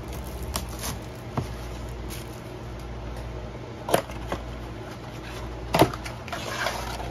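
A cardboard blaster box of trading cards being handled and torn open by hand: scattered light taps, two sharp clicks about four and six seconds in, then a short rustle as the box flap is pulled open.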